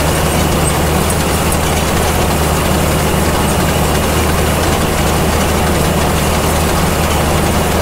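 Tractor engine running steadily while an old Gehl round baler's pickup tines feed hay into the baler, a steady mechanical drone.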